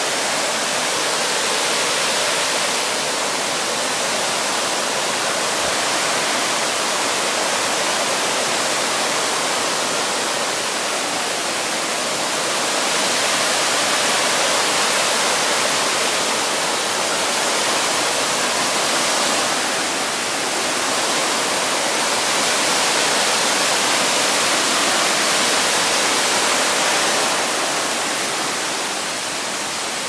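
Mountain stream cascading over boulders in small waterfalls: a steady, loud rush of water that swells slightly at times.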